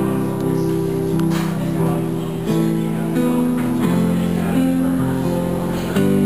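Acoustic guitar and a Kawai keyboard playing an instrumental passage together, the chords changing every second or so.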